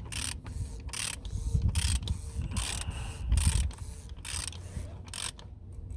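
Hand socket ratchet clicking in a steady run of short strokes, about two to three a second, that stops near the end. A bolt is being tightened down on a freshly fitted gasket to stop an oil leak.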